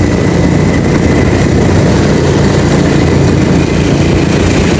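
Engine and road noise from a moving motor vehicle, running steadily with a dense low rumble.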